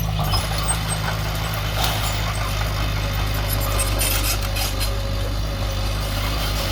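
Diesel engine of heavy earthmoving machinery running steadily, with scattered metallic clicks and rattles over it.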